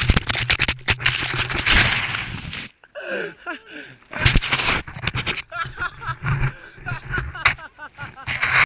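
Hip-hop backing track that cuts off about two and a half seconds in. After it comes the action camera's own sound: sharp knocks and rushes of snow against the microphone, with people's voices in between.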